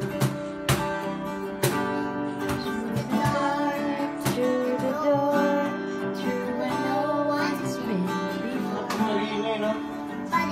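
Acoustic guitar strummed in chords, with a voice singing along in places.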